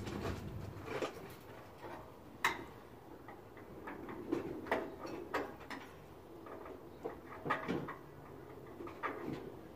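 Irregular clicks and light knocks from hand work on a pickup truck's bare steel frame, with one sharp knock about two and a half seconds in.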